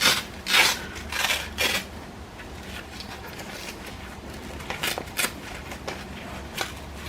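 Robot vacuum's plastic mop holder and mop cloth being handled: four short rubbing, scraping swishes in the first two seconds, then a few light clicks and taps.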